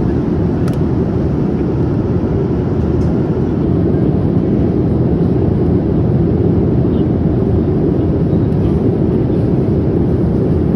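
Steady roar of a Boeing 787 airliner's engines and airflow heard inside the passenger cabin, growing slightly louder about three and a half seconds in.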